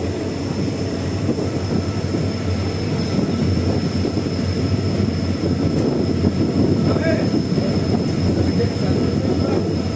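Passenger train coach running on the rails: a steady rumble and rattle, with a thin steady high-pitched whine above it.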